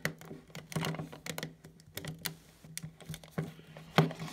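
Hard plastic toy parts clicking and knocking irregularly as the hammer piece of an Imaginext Clayface figure is worked onto its arm, a stiff fit, with a louder knock near the end.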